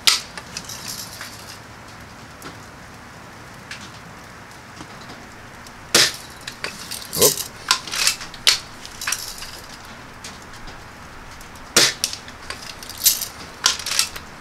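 A Daisy Red Ryder lever-action BB gun being shot. Two sharp shots come about six seconds apart, the first about six seconds in. Each is followed a second or so later by a quick run of clicks and clacks as the metal cocking lever is worked for the next shot.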